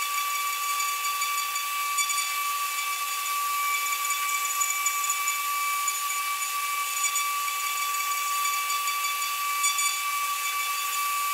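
High-speed CNC engraving spindle running at a steady high-pitched whine, with a hiss as its fine pointed cutter engraves brass.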